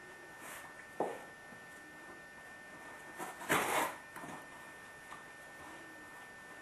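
A Great Pyrenees chewing and licking a cardboard milk carton held in its paws: a sharp crackle about a second in and a louder, longer crunch of the carton around the middle, with quieter rustles between.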